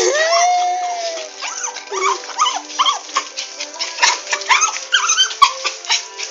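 Small dog whimpering and yipping in a string of short, high, rising-and-falling cries, several a second.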